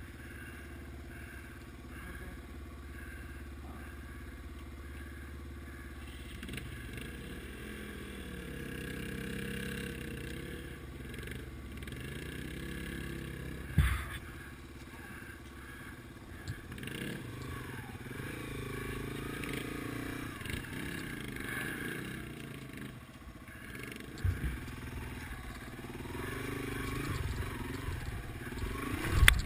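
Yamaha TW200's single-cylinder four-stroke engine running at low revs, its pitch rising and falling with the throttle on a slow rocky descent. Sharp knocks come as the bike jolts over rock steps: a loud one about halfway through and another near the end.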